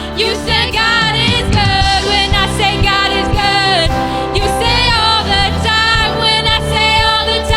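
Gospel music: voices singing over a band backing, with a steady beat.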